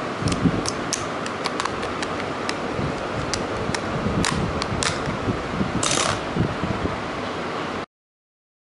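Steady fan-like whir with a scatter of small, sharp clicks from hands handling small plastic objects beside a laptop, cutting off to silence near the end.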